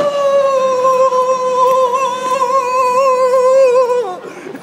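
A voice singing one long, high, loud note that wavers near the end, then slides down and breaks off about four seconds in.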